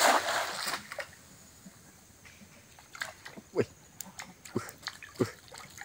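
A cast net landing on shallow creek water with a splash, followed by scattered small drips and plops as the wet net is hauled back up out of the water.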